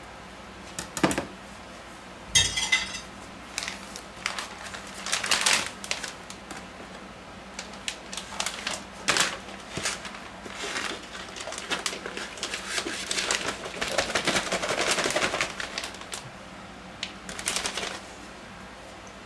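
A small wire whisk clicking and scraping in a plastic tub of marinade, then a clear plastic bag rustling and crinkling as the tub is worked into it and steaks in marinade slide out of the tub into the bag. The handling comes as irregular clicks and knocks with a longer stretch of rustling in the second half.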